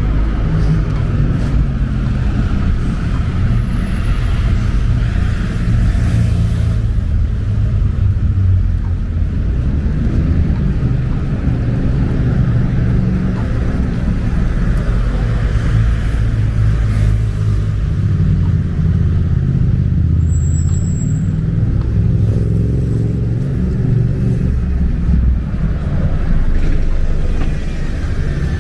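City road traffic: the steady low rumble of vehicle engines, cars and heavy vehicles such as buses, running close by.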